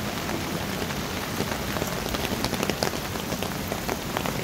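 Steady rain falling, with individual drops tapping sharply close by, more of them from about a second and a half in.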